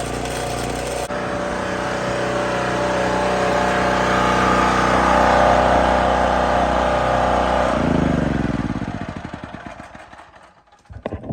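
Small portable gasoline generator engine running steadily, then shut off about eight seconds in, winding down and falling in pitch until it stops.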